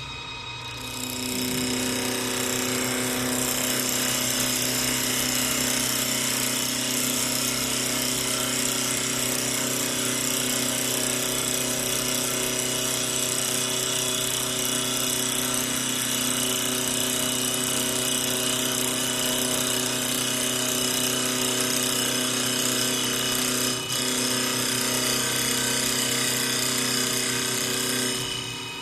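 CNC wood lathe machining a wood workpiece: a steady motor and spindle whine over a continuous cutting noise. It comes in about a second in, dips briefly near the end, and dies away just before the end.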